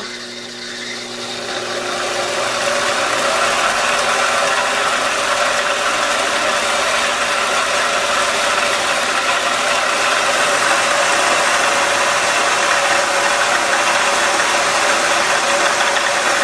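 A 4x6 horizontal metal-cutting band saw, driven by a treadmill DC motor, sawing through a metal round bar at a pretty slow blade speed: a steady rasping cut over the hum of the motor and drive. It gets louder over the first two seconds or so, then holds steady.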